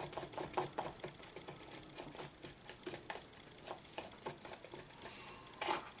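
Light, irregular clicks and taps of plastic as the air filter cover of a Homelite leaf blower vacuum is worked loose by hand, with a slightly louder clatter near the end.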